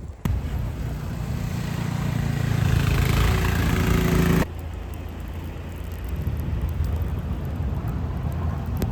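A motor vehicle's engine running close by with a steady low pitch, growing louder, then cut off abruptly about four and a half seconds in. A quieter, steady street noise with a low hum follows.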